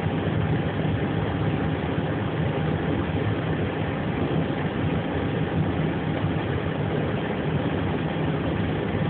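Steady engine noise, an even drone with a faint low hum, heard aboard an Airbus airliner while it is towed on the ramp.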